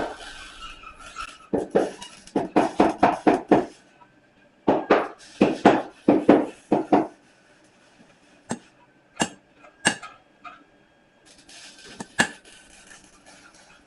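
A 2.5-pound hammer striking a punch to drive a hole into a steel bar: two quick runs of sharp metallic blows, then a few single blows spaced out near the end.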